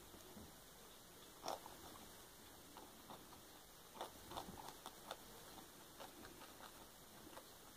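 Guinea pigs chewing lettuce leaves: faint, irregular crunching bites, with the sharpest one about a second and a half in and a busier run of bites about four to five seconds in.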